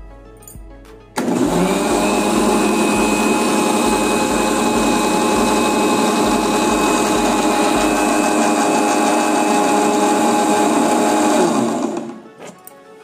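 Electric mixer grinder running steadily, blending soaked fennel seeds with sugar and cream. It starts suddenly about a second in and winds down near the end.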